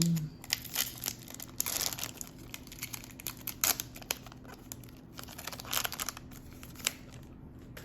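Foil booster pack of Yu-Gi-Oh! cards crinkling and tearing as it is opened by hand, in irregular rustling bursts that thin to a few soft clicks near the end.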